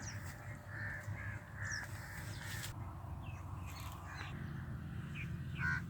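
A crow cawing: a quick run of about five calls in the first few seconds, then a few more near the end, with small birds chirping faintly.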